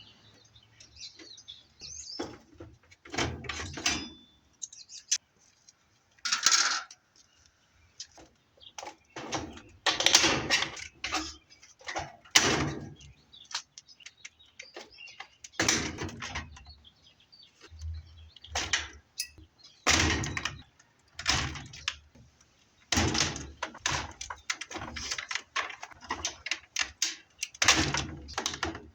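Irregular knocks, clanks and rattles of a washing machine's sheet-metal panels and parts being pried and pulled apart by hand. Some strokes are loud and sharp, with quiet gaps between them.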